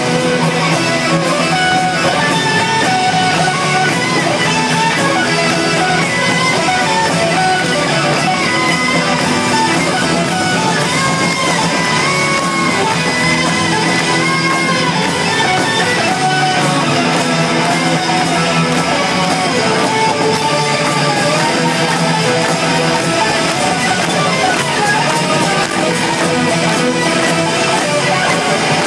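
Live rock band playing an instrumental passage at full volume, an electric lead guitar bending notes over drums, keyboards and strummed guitars. Heard from within the crowd through a phone's microphone.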